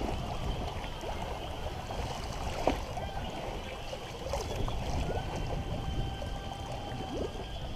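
Wind on the microphone and water washing past the hull of a sailboat under way: a steady low rumbling rush, with a few small knocks.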